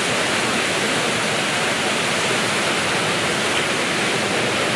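A waterfall in Johnston Canyon pouring steadily, an even, constant rush of falling water.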